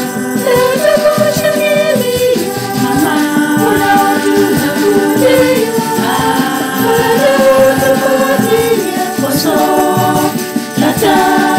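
A women's choir singing a Kiswahili Marian hymn in harmony, over light hand percussion keeping a steady beat.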